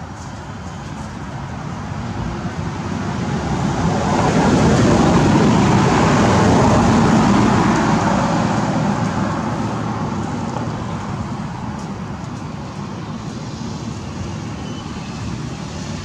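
A road vehicle passing by: a rushing noise that builds over the first few seconds, is loudest around the middle, then slowly fades.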